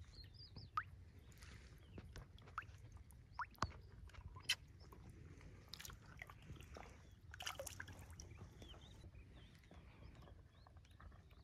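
Faint sloshing and dripping of shallow water as a barbel is lowered into the water and released by hand, with scattered small ticks and a brief splash about seven and a half seconds in.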